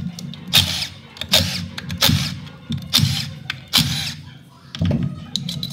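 Hand ratchet wrench clicking in short repeated strokes, about five in a row, as bolts on the engine's intake bracket are worked loose, over faint background music.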